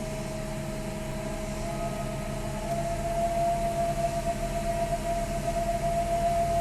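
A 2002 Lexus GS300 running with a steady, high, very annoying whine over the low hum of the engine. About three seconds in the whine grows a little louder and rises slightly in pitch.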